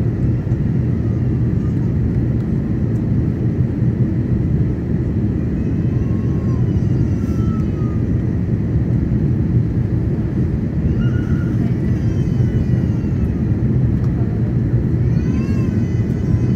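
Steady low rumble heard inside the cabin of an Airbus A330-900neo on final approach: engine and airflow noise from its Rolls-Royce Trent 7000 turbofans and the air rushing past the fuselage. Faint voices come through here and there.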